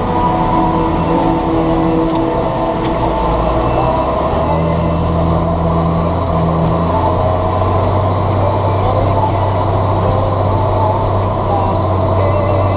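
John Deere 7710 tractor's six-cylinder diesel engine running steadily under work, its note changing about four seconds in.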